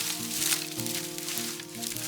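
Background music with quick stepping melodic notes, over a grainy high hiss.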